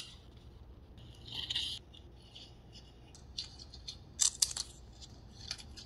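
A craft knife scraping through cardboard, then scissors snipping the cardboard in several short cuts in the second half.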